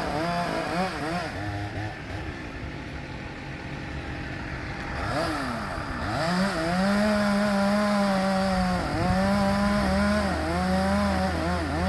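Two-stroke chainsaw revving. It drops back to a lower, quieter speed for a few seconds, then speeds up again about halfway through and runs at high speed with a few brief dips.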